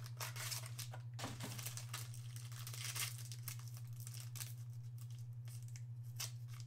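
Trading-card packaging torn open by hand: a cardboard box flap, then a foil pack wrapper crinkling and tearing in short, irregular rustles, over a steady low hum.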